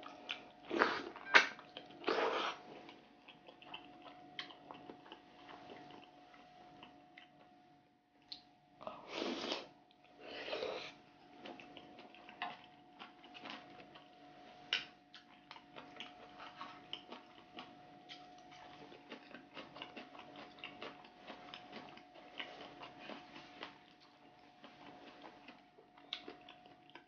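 Close-miked eating: loud wet slurps of spicy chicken-feet stew with glass noodles, three in the first couple of seconds and two more about nine and ten seconds in. Between them come wet chewing and lip-smacking clicks, over a faint steady hum.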